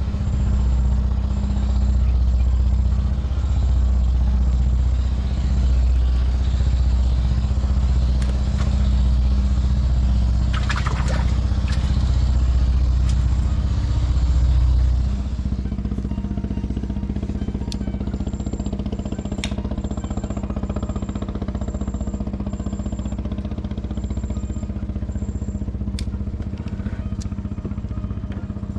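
An engine running steadily, its low hum dropping in level and changing note about halfway through. A few sharp clicks and a faint, high, regular chirping sit above it.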